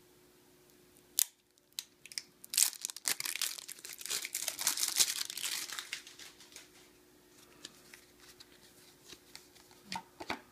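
Plastic shrink-wrap on a deck of cards being torn open and peeled off: a sharp tick about a second in, then dense crinkling of the plastic for a few seconds, easing into a few faint crackles.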